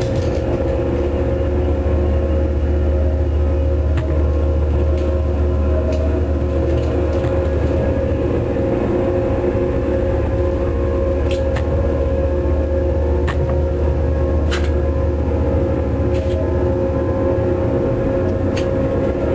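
Machinery running steadily: a constant low rumble with a steady hum over it and a few scattered clicks.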